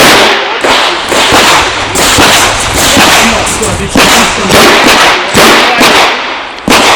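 A string of revolver shots fired in rapid, uneven succession during a timed shooting stage, about eight in seven seconds, each a sharp crack with a short ringing tail.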